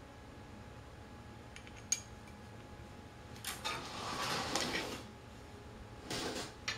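Metal wheelchair caster parts and a metal plate clinking and scraping as they are handled and fitted together: a sharp click about two seconds in, then a longer rattling scrape, and a shorter one near the end.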